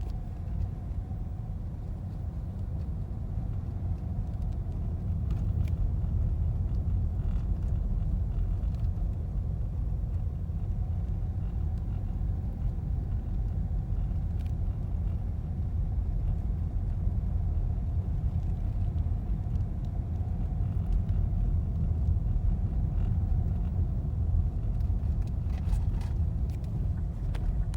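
Steady road and drivetrain rumble inside a moving Subaru Impreza Sport's cabin, with a faint steady hum and a few faint ticks here and there.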